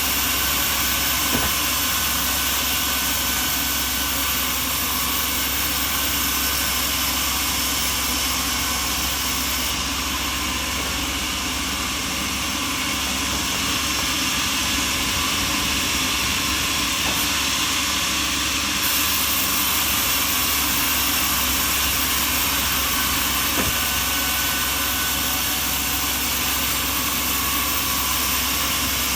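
Sawmill machinery running with a steady, even mechanical noise, slightly quieter for a few seconds in the middle.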